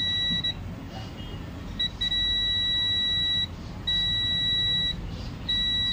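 Digital multimeter in continuity (beep) mode giving a steady high-pitched beep whenever the probes make contact. A beep stops about half a second in, there is a short blip, then three longer beeps of about a second each with short gaps between them. The beeping shows continuity to ground: a short on the laptop motherboard being probed.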